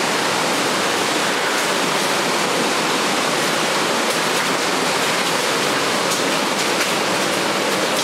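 Steady rush of falling water from a waterfall, a loud, even hiss without breaks.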